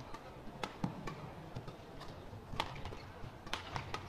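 Badminton rally: sharp racket strikes on the shuttlecock, a few strong ones spaced about a second apart with smaller ticks between, over the background of a large sports hall.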